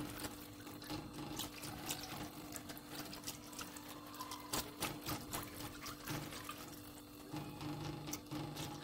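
Silicone whisk stirring hot chicken broth in a metal saucepan as sifted toasted flour is whisked in: soft liquid swishing with many irregular light clicks and taps. A faint steady hum runs underneath.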